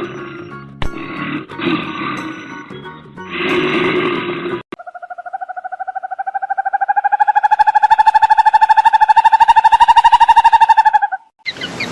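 An animal roaring in three rough bursts, then a loud buzzing tone that rises slowly in pitch for about six seconds and cuts off suddenly.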